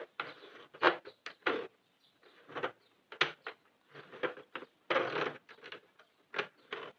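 Sentro 48-needle circular knitting machine being worked by hand: irregular light plastic clicks and yarn rustles as the needles are moved past the yarn guide, about a dozen in a few seconds with short pauses between.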